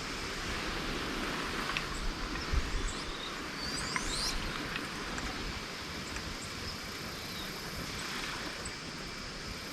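Outdoor ambience with a steady rustling hiss of wind and vegetation, a few thin, high, rising bird calls about four seconds in, and a low thump about two and a half seconds in.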